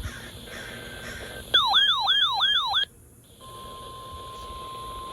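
Weather radio alert siren: an electronic tone sweeping up and down about three times a second for just over a second, then a brief pause. Then the steady 1050 Hz NOAA Weather Radio warning alarm tone starts, signalling that a new warning is coming.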